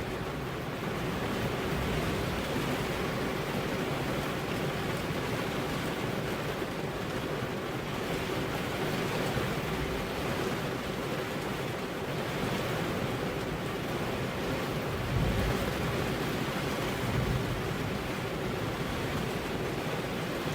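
Heavy rain falling steadily, an unbroken dense hiss, with a brief low thump about three-quarters of the way through.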